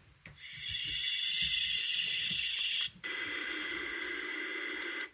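Dreamegg portable sound machine playing white noise through its small speaker. The hiss fades in, then switches about three seconds in to a second noise sound with a little more low end.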